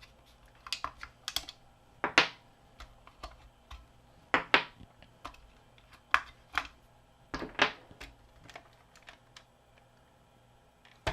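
Batteries being popped out of a plastic toy battery compartment and handled: irregular small plastic clicks and taps, a few louder, thinning out near the end.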